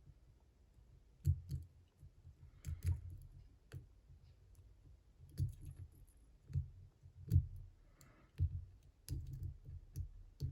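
Irregular small clicks of a hook pick working the pins of a four-pin Brinks commercial padlock, mixed with low bumps from the lock being handled.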